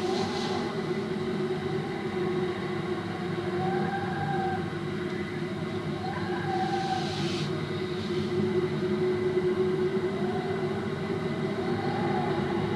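Desert wind sound effect: a steady low wind drone with faint whistles that rise and fall every couple of seconds, and a brief hissing gust about seven seconds in.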